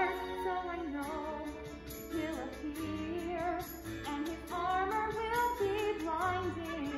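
A woman singing a musical-theatre song with vibrato over musical accompaniment.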